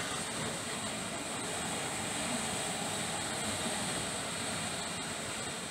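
Hurricane-force wind blowing in a steady, unbroken rush.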